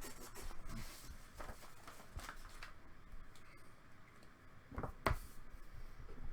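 Light handling noise at a desk: scattered soft clicks and rustles, with one sharper click about five seconds in.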